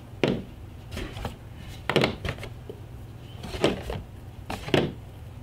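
Small metal cat-food cans set down one by one on a hard tabletop: several light knocks and clinks at irregular intervals.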